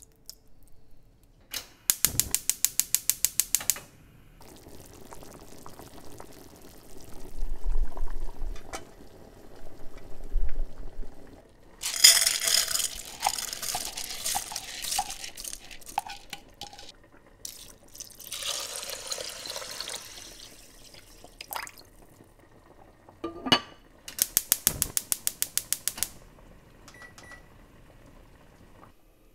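Gas hob igniter clicking rapidly, about nine clicks a second for a second or two, twice: about two seconds in and again near the end. In between, a pot of oden broth bubbles at a boil, with popping and the odd clink of the pot.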